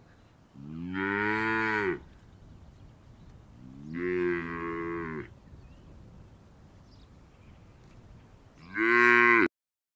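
Three long bovine moos, each bending up and then down in pitch, spaced a few seconds apart; the third is the loudest and cuts off suddenly.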